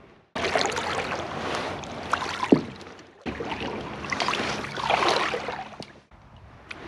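Water splashing and lapping against a kayak, with a few sharp knocks from handling in the boat. The sound cuts off abruptly twice.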